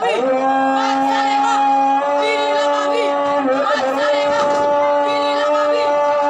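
A group of girls' voices holding long sung notes in unison for their scout cheer, the pitch stepping up a couple of times, with short calls over the top.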